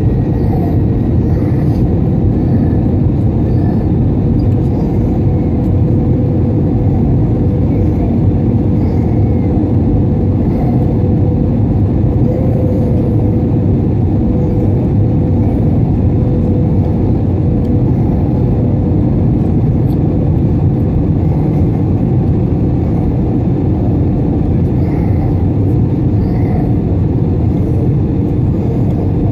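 Jet airliner cabin noise from a window seat over the wing, in flight: a steady rumble of engines and rushing air with a constant droning hum.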